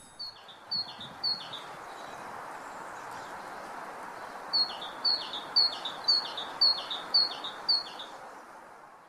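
Great tit singing its repeated two-note 'tea-cher' phrase: three phrases near the start, then a run of seven at about two a second from the middle. A steady outdoor background hiss runs underneath and fades out at the end.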